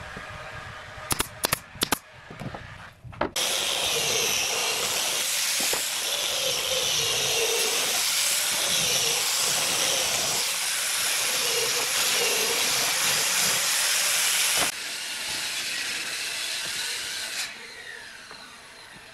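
A few sharp clicks of a pneumatic brad nailer driving nails into a wooden frame, followed by an angle grinder with a sanding disc running against the wood in a loud, steady hiss. It drops in level about three-quarters of the way through, then winds down near the end.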